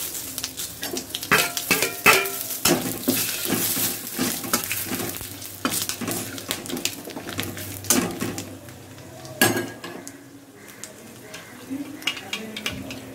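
Whole spices (bay leaves, dried red chillies and nigella seeds) sizzling in hot oil in a wok (kadai), with a metal spatula scraping and clicking against the pan as they are stirred. The spices are being fried as a tempering (phoron).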